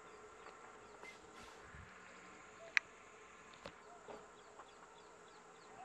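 Faint outdoor insect sounds with small repeated chirps a few times a second, and one sharp click a little under three seconds in.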